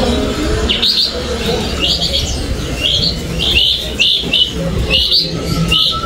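Small caged songbird giving a series of short, high chirps, roughly one or two a second, with a quick run of three a little past the middle, over a low steady background din.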